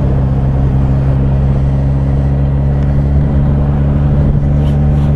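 Motorcycle engine running at steady revs while riding, its pitch holding even, under a steady rush of wind and road noise.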